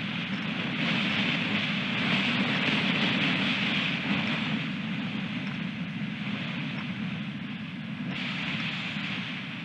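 Strong wind buffeting an outdoor camera microphone in gusts: a steady rushing noise that swells and eases, with a short lull in the higher hiss about eight seconds in.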